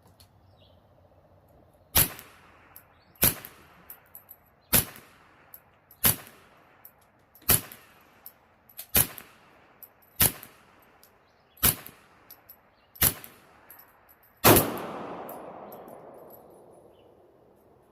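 Remington 597 semi-automatic rifle fired ten times in slow, steady succession, about one and a half seconds apart. The last shot is the loudest and fades out slowly.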